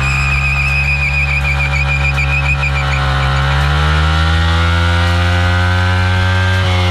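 Yamaha MT-15's single-cylinder engine held at high revs in a burnout, the rear tyre spinning on the dirt. Over the first three seconds a high, wavering squeal rides on top. About three seconds in, the engine note climbs and then holds steady.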